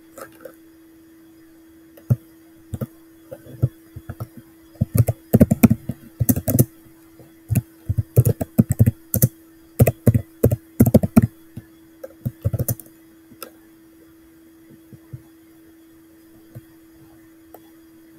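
Typing on a computer keyboard in irregular bursts of keystrokes, thinning to a few scattered key presses about two-thirds of the way through.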